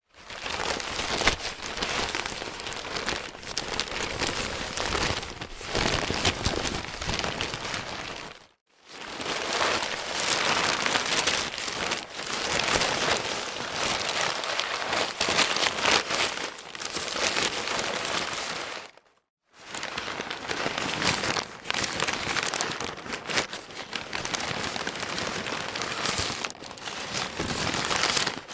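Newspaper pages rustling and crinkling as they are handled. There are three long stretches with two brief silent breaks between them.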